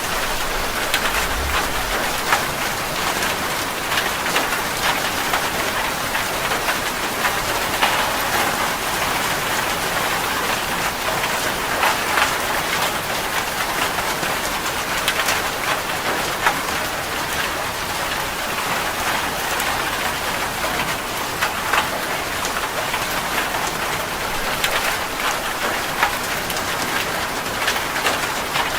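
Heavy rain drumming steadily on a metal roof, with many sharp individual drop hits.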